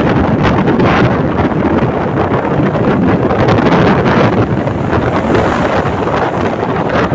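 Wind buffeting the microphone steadily, over the rush of surf from a rough sea.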